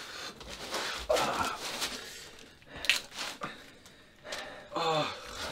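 A knife blade scraping and rubbing as it is worked at a wrist restraint, with a sharp click partway through and two short grunts of effort.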